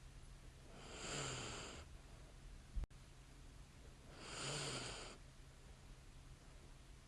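A sleeping woman breathing with light snoring: two slow breaths about three seconds apart, each a soft snore lasting about a second, over a steady low hum. A brief low thump comes about three seconds in.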